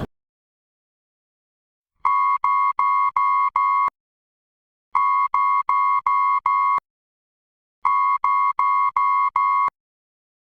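Electronic earthquake-warning alert tone: groups of five short, steady beeps near 1 kHz, repeated three times about every three seconds, after two seconds of silence.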